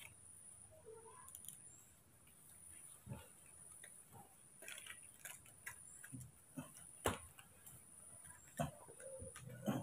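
A baby monkey handling and mouthing a small foil-lined cardboard box: faint, scattered crinkles and clicks. The sharpest click comes about seven seconds in, with another near the end. A faint steady high whine runs underneath.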